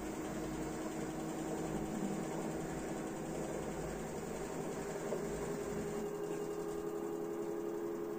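LG F4DV509S0E washer-dryer spinning its empty drum up through about 1000 rpm: a steady, fairly quiet machine hum with a whining tone that edges slowly up in pitch. A low rumble underneath fades out about six seconds in. The drum is running smoothly without knocking against the cabinet.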